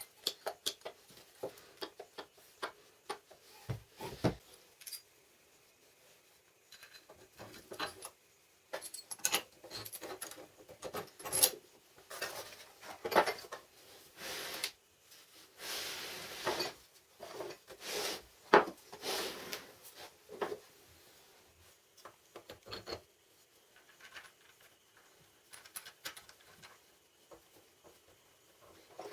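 Hand work with tools and parts on a workbench: scattered light clicks and clinks, with stretches of short scraping or rubbing in the middle. No machine is running.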